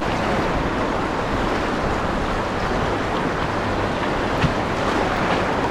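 Rushing whitewater of a river rapid: a steady, even rush of water with no pauses.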